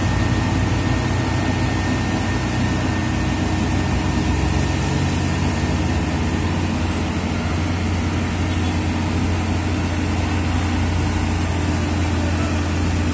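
Hino wingbox truck's diesel engine idling steadily with a deep drone, building back up air pressure that has run low.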